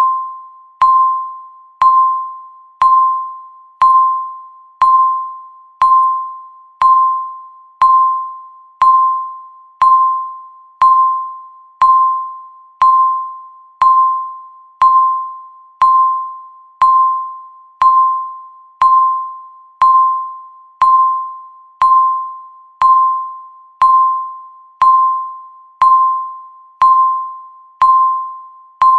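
Countdown timer's electronic beep, sounding once every second as the count ticks down: each is a single clear tone with a sharp start that fades away before the next.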